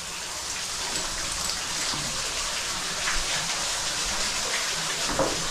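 Cave waterfall pouring down into a pit: a steady rush and splash of falling water.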